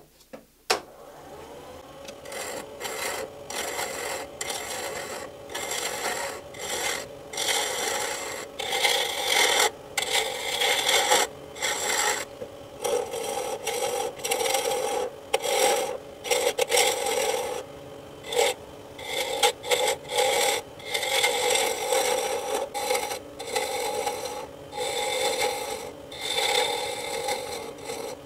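A wood lathe starting up with a click and a rising hum, then a turning tool cutting a spinning pen blank of banksia pod and dyed epoxy. The cuts come as loud, irregular scraping strokes over the lathe's steady hum while the blank is roughed to shape.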